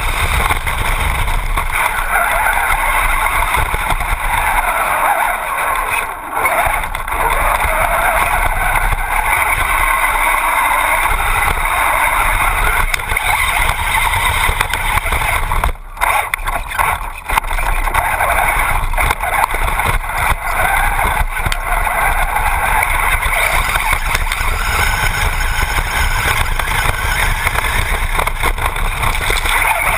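Traxxas Bandit RC buggy with a brushless motor driving over dirt, heard from a camera mounted on the car: a steady noisy mix of motor, drivetrain and tyres on the ground, with brief lulls about six and sixteen seconds in.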